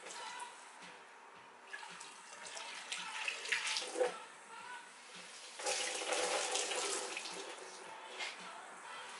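Water splashing and running down a car body panel as it is sponged and rinsed with water to wash off muriatic acid, with louder splashing about a third of the way in and again past the middle.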